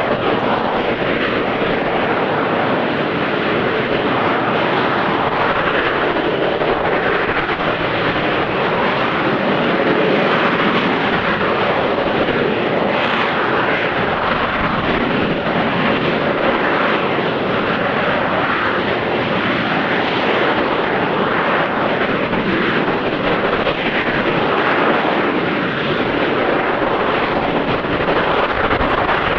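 AV-8B Harrier jump jet hovering, its Rolls-Royce Pegasus vectored-thrust turbofan running steadily at high power, loud throughout with slow swells in level.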